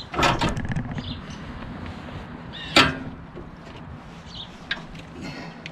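Metal knocks and clunks as a Honda GX340 engine is shifted by hand on the cart's steel mounting plate for a test fit. A quick clatter comes about a quarter second in, one sharp, louder knock near three seconds, and a few lighter taps after.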